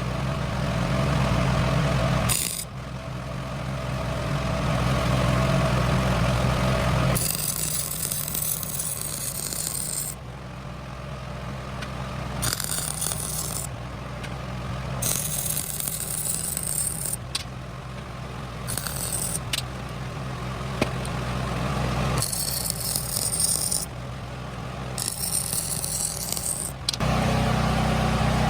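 Welder tack- and stitch-welding a steel control arm bracket onto an axle: about six separate bursts of arc crackle, each one to three seconds long, over a steady low hum.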